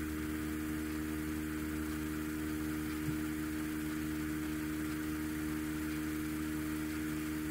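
Steady electrical hum with a layer of hiss, holding level throughout, with one faint tick about three seconds in.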